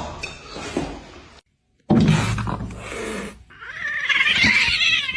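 A cat yowling: a long, wavering cry that starts a little over halfway through, after a loud, noisy stretch of sound.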